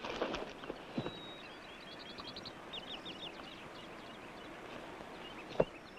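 Birds chirping in a run of short, high, repeated calls over a faint outdoor background. A few rustles and a knock come near the start, and one sharp knock, the loudest sound, falls about five and a half seconds in.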